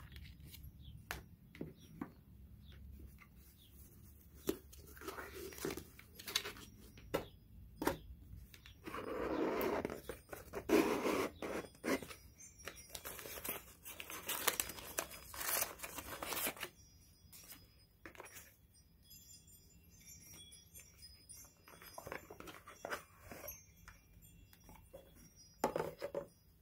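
Paper packaging handled: an envelope, tissue paper and a slide-out cardboard gift box rustle and crinkle, with scattered light taps and clicks. The rustling is loudest through the middle.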